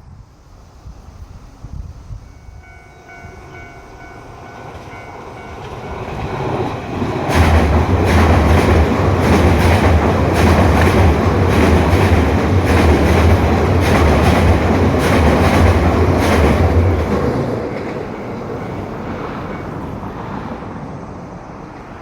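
Nankai Main Line train approaching and passing over a level crossing. A steady tone sounds for a few seconds as it nears. About seven seconds in come some ten seconds of loud rumble and repeated wheel clatter over the rail joints as the cars go by, then the sound falls away to a lower level.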